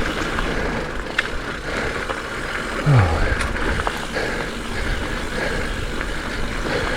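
Ride noise from a hardtail mountain bike on dirt singletrack: a steady rush of wind and tyre noise with low rumble, and a few sharp clicks and rattles from the bike. About three seconds in there is a short low falling sound.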